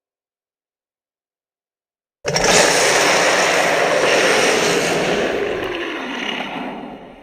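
Beast's roar sound effect, mixed from big-cat and monster roars: one long, rough roar that starts abruptly about two seconds in, then slowly fades and sinks in pitch over about five seconds before cutting off.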